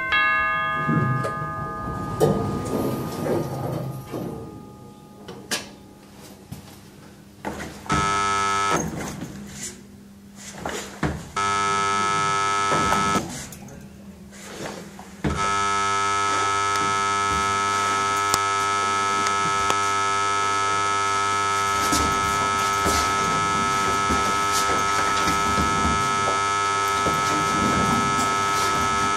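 Electronic sound effects played back through a small speaker: a bell-like ding rings out at the start. A flat, steady buzzer tone then sounds twice briefly and comes in again about halfway through, holding unbroken to the end.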